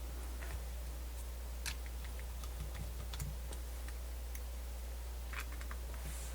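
Scattered light clicks and ticks of small parts and tools being handled during work on an open MiniDisc player, over a steady low hum.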